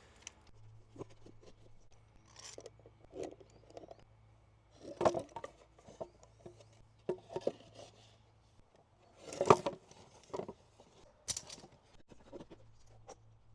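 Clamps and wooden boards being handled and fitted together: scattered clicks, light knocks and rubbing, with two louder knocks about five and nine and a half seconds in.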